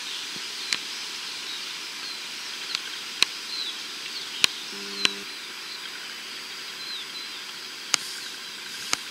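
Outdoor shoreline ambience: small birds chirping over a steady hiss, with a few sharp clicks and a brief low tone about five seconds in.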